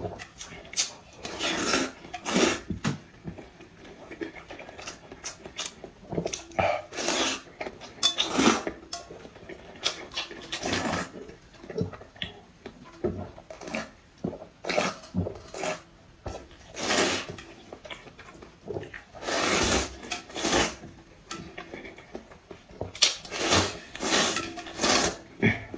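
Close-miked noodle eating: repeated noisy slurps of noodles and broth from a metal bowl at irregular intervals, with chewing and small clicks between them.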